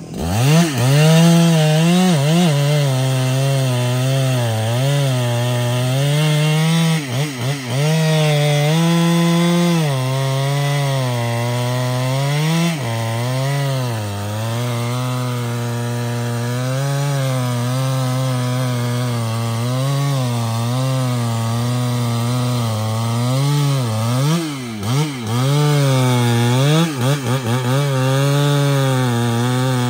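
Large Husqvarna chainsaw cutting trembesi (rain tree) wood. The engine revs up sharply, then runs under load with its pitch wavering up and down as the chain bites. The revs drop briefly a few times, around a quarter of the way in and again near the end.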